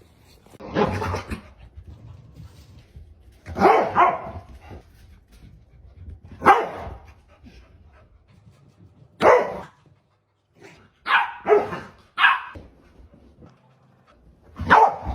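Dog barking in single barks a few seconds apart, with three quicker barks in a row near the end.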